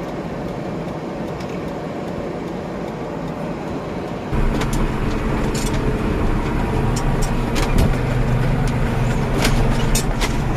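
Tractor engine running steadily while driving, getting louder about four seconds in, with scattered light knocks and rattles.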